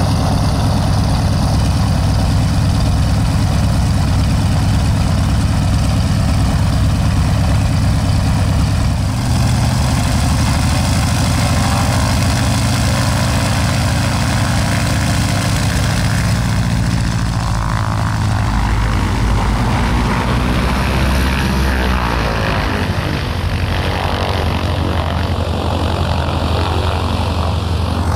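Pratt & Whitney radial engines of AT-11 and T-6 warbird trainers running with propellers turning: a loud, steady, deep drone. Its pitch shifts about nine seconds in and again in the second half.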